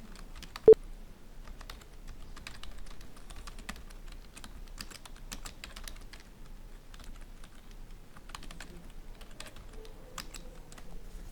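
Typing on a computer keyboard: a run of quick, uneven key clicks, with one much louder, sharper knock under a second in.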